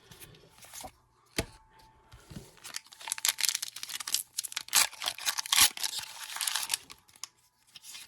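Foil Pokémon trading card booster pack wrapper being crinkled and torn open, a dense crackling that runs for about four seconds from around three seconds in, after a single sharp click.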